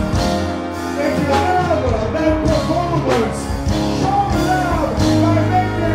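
Live dancehall stage performance: a male artist singing into a microphone over a backing track with a steady beat and bass, through the stage sound system.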